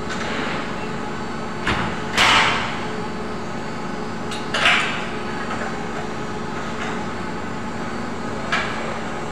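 Sheet-steel flue ducting and furnace casing being knocked and clanged as the duct is fitted into place: four separate metallic bangs, the loudest about two seconds in with a short ring after it.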